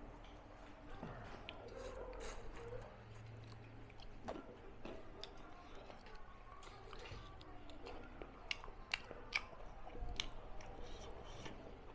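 A person chewing food, with scattered sharp clicks that cluster in the second half.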